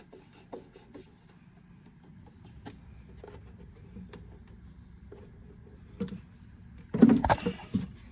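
Scattered light clicks and knocks of parts and tools being handled, then a loud clatter of knocks about seven seconds in.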